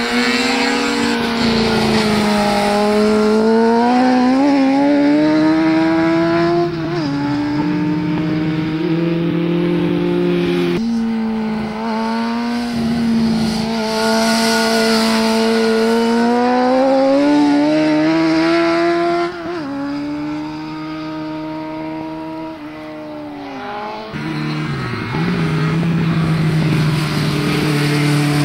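Motorcycle engines on a race track, revving hard as the bikes lap and lean through corners. The pitch climbs and falls, breaking off sharply about four times where the rider lifts off or shifts gear.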